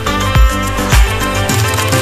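Upbeat background music with a steady beat, about two kick-drum thumps a second; the deepest bass drops out shortly before the end.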